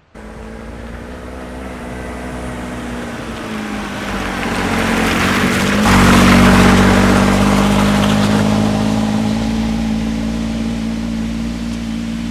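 A motor engine running steadily. It builds to its loudest about six seconds in with a small jump in pitch, then eases off a little.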